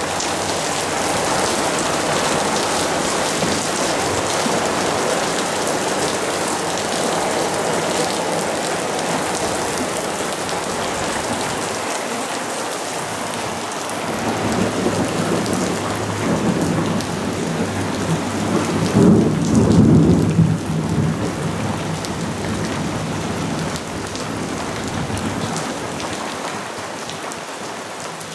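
Steady rain from a monsoon thunderstorm pattering on a swimming pool and its concrete deck. About halfway through, a roll of thunder rumbles in, is loudest a little past two-thirds of the way, then fades under the rain.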